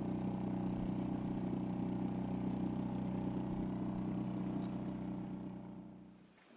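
Outboard motor of an inflatable dinghy running at a steady speed, a constant engine drone that fades out near the end.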